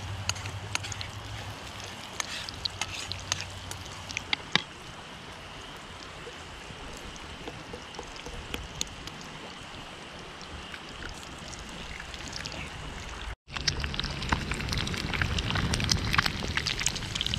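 Onions and an egg frying in a steel pan over a campfire: a steady sizzle with frequent pops and crackles. The sizzling grows louder about thirteen seconds in.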